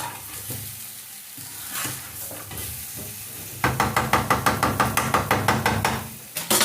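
Potatoes and onions frying and sizzling in a pan. From about three and a half seconds in, a spoon stirs and scrapes against the pan in quick, regular strokes, about six a second, with a louder clatter near the end.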